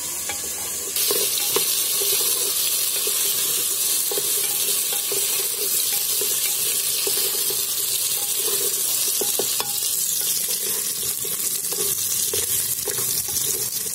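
Chopped vegetables and whole spices sizzling in hot oil in a pressure cooker, being roasted as the base of a rice dish, while a wooden spatula stirs them, scraping and knocking against the pot. The sizzle gets louder about a second in.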